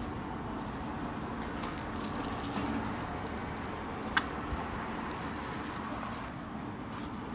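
Clear plastic film crinkling as it is pulled off a plastic food bowl, with one sharp click about four seconds in, over a steady low background rumble.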